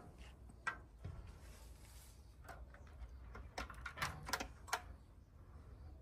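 Light, irregular clicks and crunches of footsteps on a path of wooden stepping stones and dry leaves, over a low steady rumble; the clicks come closest together a little past the middle.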